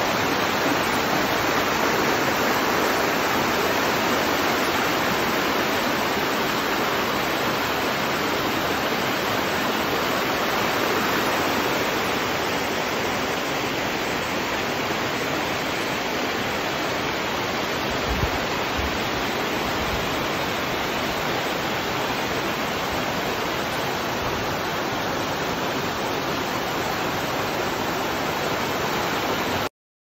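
Small woodland waterfall and creek rushing steadily over rocks, an even wash of water noise that cuts off suddenly near the end.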